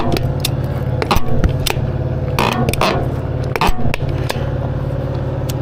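An engine idling steadily under a string of sharp metal clanks, knocks and scrapes.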